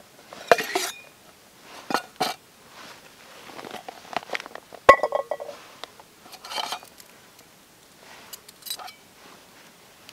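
Metal camp cookware being unpacked and handled: a compact pot, its lid and a gas stove clink and clatter against each other and the rock in about six separate bursts. The sharpest knock, about five seconds in, rings briefly.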